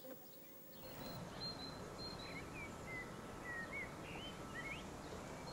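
Outdoor ambience that comes in about a second in: a steady background noise with small birds chirping, many short whistled notes that rise and fall.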